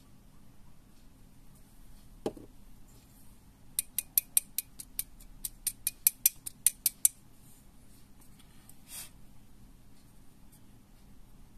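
Awl being pushed and twisted into a green foam mandula segment, giving a run of sharp crackling clicks, about five a second for some three seconds. A single knock comes just before, and a short soft rasp follows.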